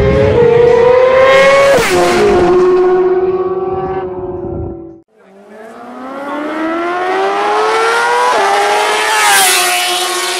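Sport motorcycle accelerating hard at full throttle, engine pitch climbing and then dropping sharply as it passes about two seconds in, fading away. After a cut about five seconds in, more sport bikes accelerate hard toward and past, revs rising with a gear change and peaking as they pass near the end.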